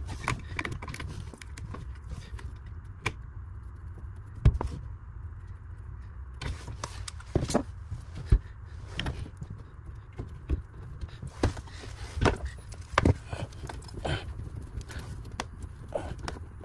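Scattered clicks and knocks from hands handling a plastic valve body, a marker pen and copper pipework and fittings, over a steady low hum.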